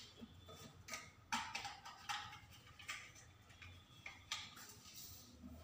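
A few faint, irregular clicks and light taps, about five over several seconds, some with a brief ring after them: small hard objects handled on a countertop.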